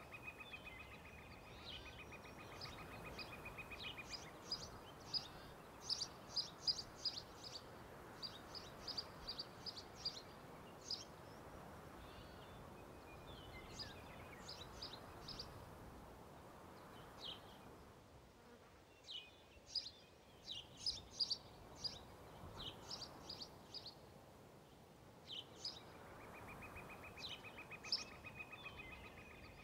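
Faint countryside soundscape: small birds chirping in quick runs of short high notes over a steady background hiss, with an insect buzzing for the first few seconds and again near the end.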